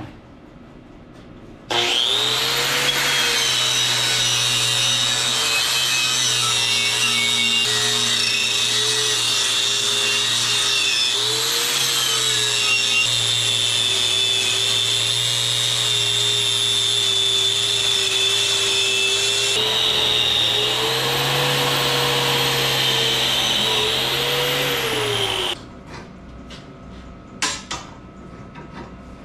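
A wire cup brush on a power tool, scrubbing steel rebar clean: a steady high whine over a scraping noise. It starts about two seconds in and cuts off a few seconds before the end, its pitch sagging slightly at moments as the brush is pressed on.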